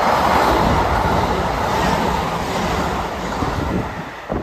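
Kintetsu 22000 series ACE limited express electric train running through the station close by: a loud, steady rush of wheels on rail that eases off about four seconds in.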